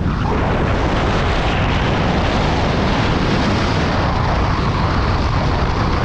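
Steady rush of wind buffeting the microphone, mixed with the road and tyre noise of a car driving along a paved street.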